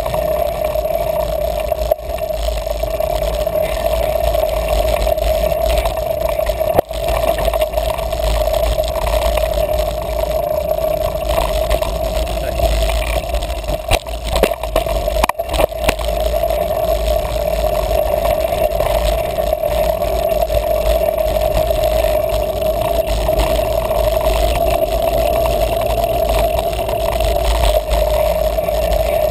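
Muffled, steady riding noise of a mountain bike on a dirt singletrack: deep rumble of wind and tyres with a constant hum, broken by a few sharp knocks from trail bumps about a quarter of the way in and again near the middle.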